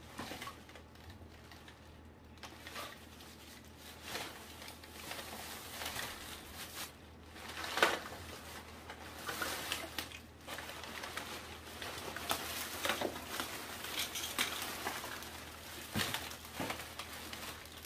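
A plastic trash bag rustling and crinkling as it is handled, in uneven bursts, with a few sharp knocks, the loudest about eight seconds in.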